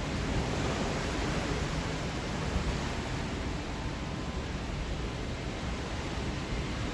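Steady rush of wind across the microphone on the open deck of a ship under way at sea, with rumbling low-end buffeting.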